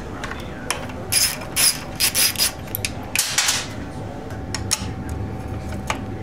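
Socket ratchet clicking in short bursts as the 10 mm fuel-tank bolts are turned, a burst about every half second in the first half, then a few single clicks.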